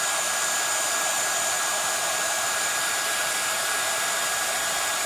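Handheld craft heat tool (embossing heat gun) running steadily: an even blowing rush with a thin, steady high whine. It is heating the wax surface of a candle so that a stamped tissue-paper image melts into it.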